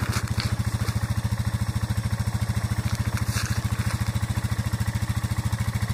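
A small engine idling steadily, with a fast, even pulse.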